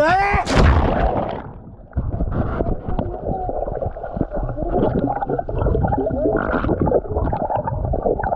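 A short shout and the splash of a dive into a swimming pool, then muffled gurgling and bubbling of water heard from a camera underwater, with all the high sound cut off.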